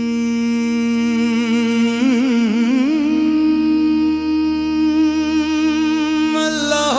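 Qawwali music: a voice holding long wordless notes over a steady low drone. About two seconds in it wavers through an ornament and settles on a higher held note, then dips and slides to a new note near the end.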